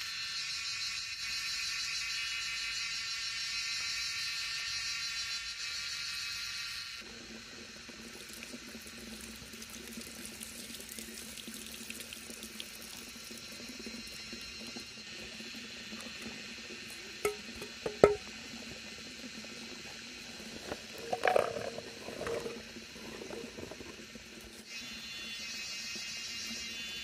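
Water pouring and splashing onto stone and wet ground while green beans are washed, with a couple of sharp knocks about two-thirds of the way through. A steady high drone fills the first seven seconds and comes back near the end.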